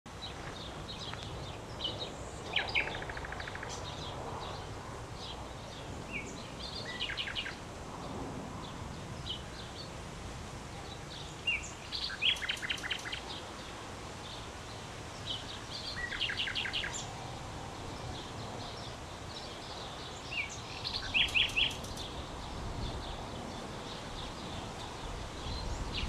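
Common nightingale singing: five phrases a few seconds apart, each built around a fast run of repeated notes, over a steady outdoor background hiss.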